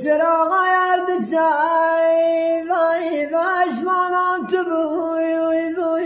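A man singing sharveh, the unaccompanied southern Iranian folk song, in a high voice: long held notes with quavering ornaments and a few brief dips in pitch.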